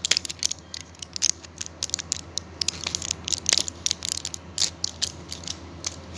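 A product box being opened and its packaging handled by hand: an irregular run of sharp clicks, scrapes and rustles.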